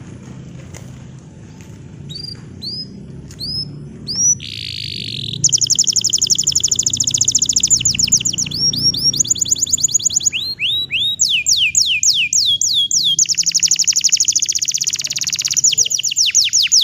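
Bottle-green domestic canary singing. It opens with a few short down-slurred notes and a buzzy note, then from about five seconds in runs into long, very fast trills of rapidly repeated notes, switching from one rolled phrase to another. A low, steady rumble runs underneath.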